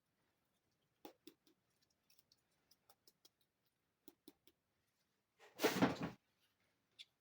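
Small plastic miniature toy furniture pieces handled up close: a scatter of light clicks and taps, then one louder rustling scrape lasting under a second about five and a half seconds in, and a last click near the end.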